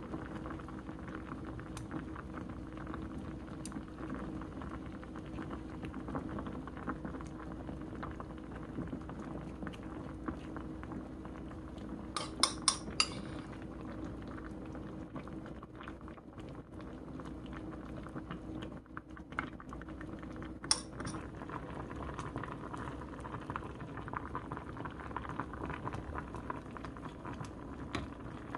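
Spicy radish braising liquid simmering and bubbling steadily in a stainless steel pot. A few sharp clinks against the pot come in a quick cluster about twelve seconds in, with one more around twenty seconds.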